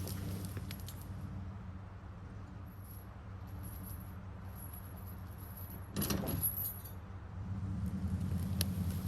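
A vehicle engine running steadily under light metallic rattling; the engine eases off in the middle and picks up again near the end. A short, louder clanking burst comes about six seconds in.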